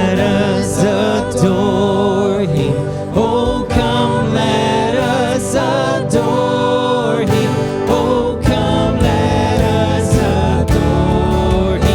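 Christian worship song: voices singing over instrumental backing.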